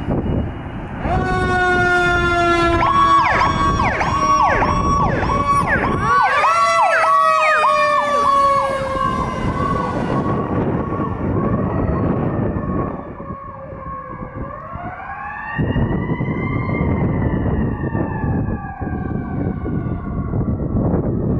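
Fire engine sirens sounding as the truck responds to a call. A fast electronic yelp repeats about twice a second for the first several seconds. Alongside it, a second siren winds up and then slowly falls in pitch, winding up again about two-thirds of the way through, over the truck's engine noise.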